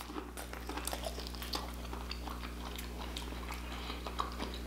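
Close-miked chewing of a mouthful of food, with many small wet clicks and smacks, over a steady low electrical hum.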